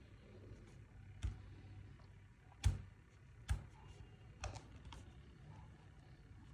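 A few sharp, irregularly spaced clicks and knocks, the loudest about two and a half seconds in, over a faint low steady hum.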